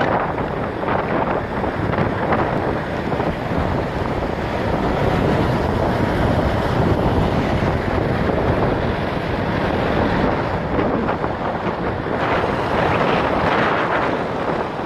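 Wind rushing over the microphone of a phone filming from a moving car, over the steady noise of driving on the road.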